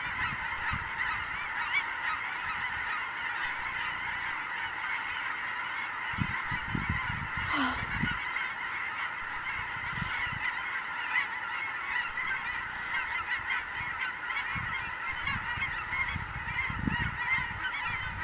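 A huge flock of migrating geese honking continuously, a dense chorus of countless overlapping calls at a steady level.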